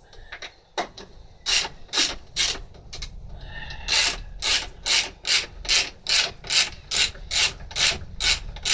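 Socket ratchet with a 10mm socket on an extension bar, its pawl clicking in short bursts as the handle is swung back and forth to loosen bolts. The strokes are sparse at first, then come steadily at about two and a half a second from about four seconds in.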